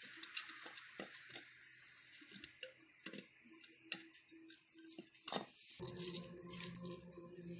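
Light metallic clicks and taps of a motorcycle engine's cylinder head and parts being handled as the head is fitted down over the cylinder studs. A low steady hum starts suddenly near the end.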